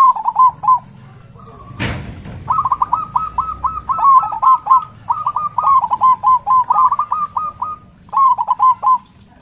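Zebra dove (perkutut) singing: rapid staccato cooing at a steady pitch, a short phrase, then a long run of quick notes, then another short phrase. A single sharp knock sounds about two seconds in.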